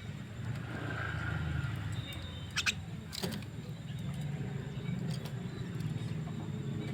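A steady low rumble with two short, sharp calls from a starling (jalak) about two and a half and three seconds in.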